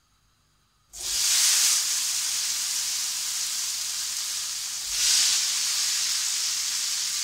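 Quartered cherry tomatoes hitting very hot oil in a nonstick frying pan: a loud sizzle breaks out suddenly about a second in, swells again around five seconds as a second handful goes in, and carries on as a steady hiss of frying.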